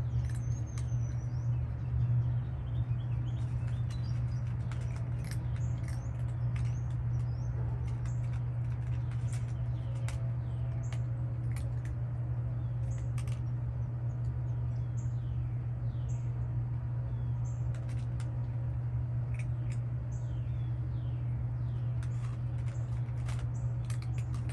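Cats crunching dry kibble, irregular sharp clicks, over a steady low hum, with small birds chirping now and then in the background.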